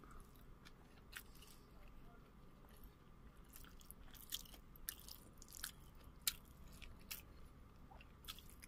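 Faint eating sounds of a person chewing a mouthful of chicken and rice eaten by hand: scattered soft mouth clicks and smacks, roughly one or two a second, over a low steady hum.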